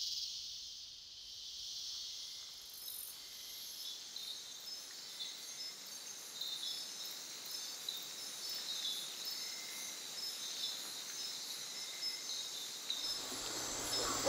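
Rainforest night insect chorus: a steady high-pitched hiss with short, repeated high chirps scattered through it.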